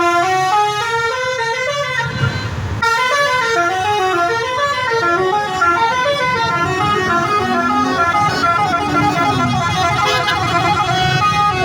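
Basuri 'telolet' musical bus horn playing a quick melody, its tones stepping up and down in pitch in a continuous tune. A brief hiss cuts in about two seconds in.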